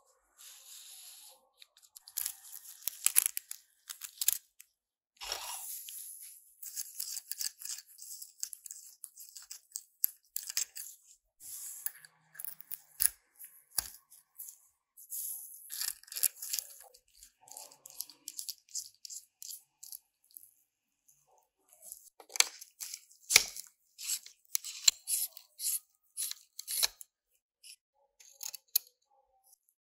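Small metal tools being handled: precision screwdriver bits clicking as they are picked from their case and threaded into a metal handle, then a screwdriver scraping as it backs a tiny screw out of a rusty model car chassis. Irregular sharp clicks and scratches, with a short lull about two-thirds in.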